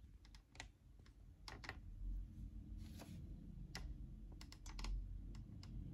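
Faint, irregular small clicks and taps over a low rumble: the camera or phone is being handled and nudged straight on its mount.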